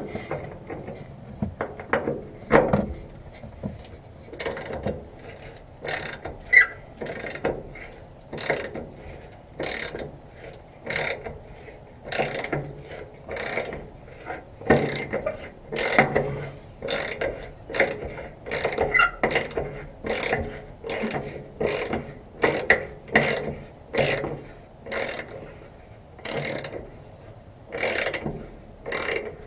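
Hand socket ratchet being worked back and forth on a bolt: a steady run of short ratcheting bursts, one for each swing of the handle.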